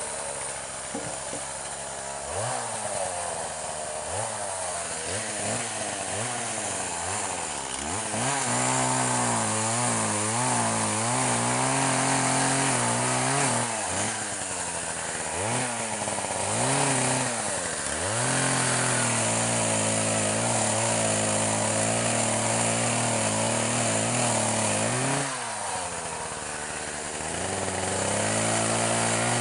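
Gas chainsaw blipping its throttle in short revs, then running at high revs cutting into a log from about eight seconds in. The revs drop and pick up again several times between cuts.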